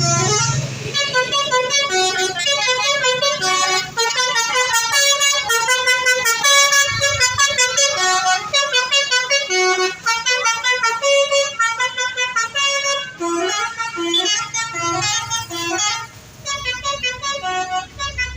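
Indonesian bus 'telolet' Basuri multi-tone horn playing a quick, repeating tune of stepping notes, several notes a second.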